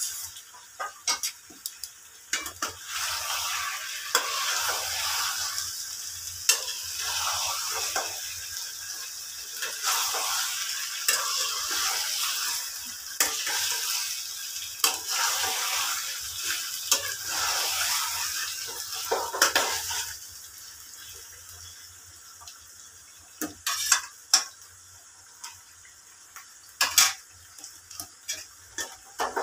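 A spatula stirring and scraping chicken pieces in green masala around a frying pan, with the food sizzling as the dry coconut powder is mixed in. After about twenty seconds the stirring stops, leaving a quieter sizzle and a few sharp taps of the spatula on the pan.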